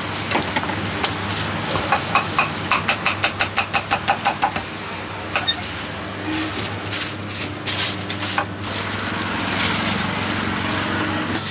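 Knife chopping fruit on a wooden chopping board: a fast, even run of knocks, about five a second, a couple of seconds in, then scattered cuts and clicks. An engine idles steadily underneath.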